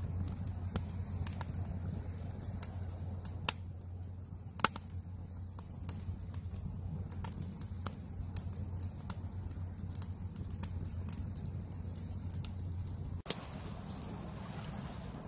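Campfire crackling, with irregular sharp pops of burning wood over a steady low rumble. About 13 seconds in there is an abrupt change: the low rumble drops out and a brighter hiss takes over.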